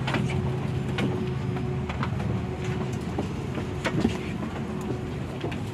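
Steady low hum inside a parked Airbus A330-300 airliner cabin, with a faint steady tone over it and scattered light knocks and clicks as passengers move down the aisle with their bags.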